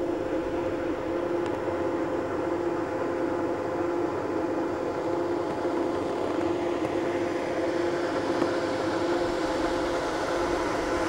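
A steady mechanical hum with two constant, slightly whining tones over a faint even hiss, unchanging throughout.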